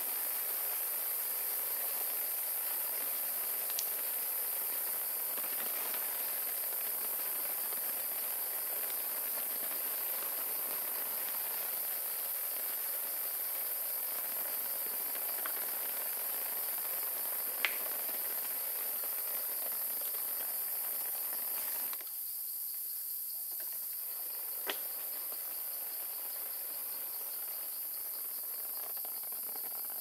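Steady, high-pitched chorus of night insects such as crickets, over a soft even hiss that drops away about two-thirds of the way through. A few short sharp ticks stand out.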